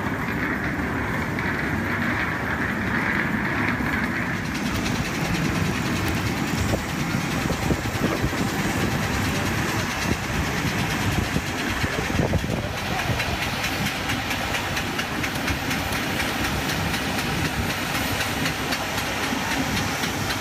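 Steady mechanical drone of aircraft and ground equipment on an airport apron, with passengers' voices mixed in. About four and a half seconds in the noise turns brighter and fuller.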